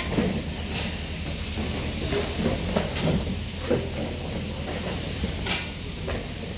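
Tourist train running, with a steady low engine rumble and hiss and a few faint knocks.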